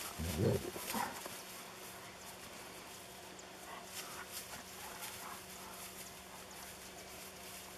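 German shepherd giving a short, low whine about half a second in, followed by faint rustling and small ticks as the dogs move through tall grass.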